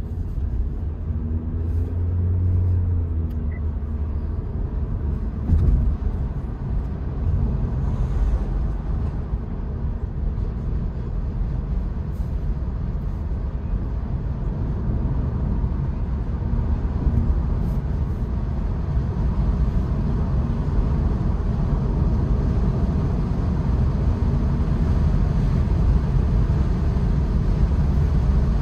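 Steady low road rumble and wind noise inside the cabin of a 2022 Honda Insight driving along with its sunroof open, with a short thump about five and a half seconds in.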